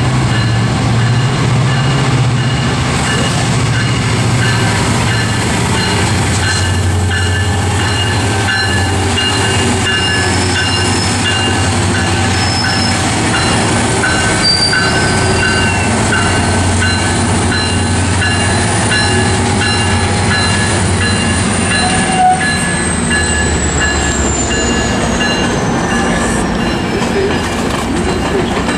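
Metrolink MPI MP36PH-3C diesel locomotive pulling a commuter train out of the station, its diesel engine running steadily under power. Its bilevel coaches then roll past, and a high whine falls in pitch near the end.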